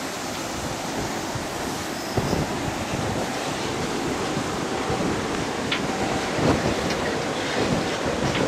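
Steady rushing wind on an open ship's deck. From about two seconds in, wind buffets the microphone with a low rumble that grows stronger near the end.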